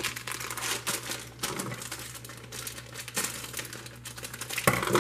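Plastic chocolate-chip bags crinkling and rustling as they are handled, with a louder crinkle near the end.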